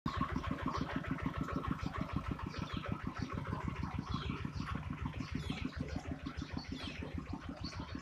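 A small engine running at idle, a steady low pulsing of about ten beats a second, with faint high bird chirps over it.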